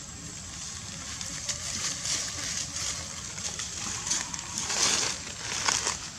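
Dry fallen leaves rustling and crackling as macaques shift and walk about on them, busier and louder from about four seconds in.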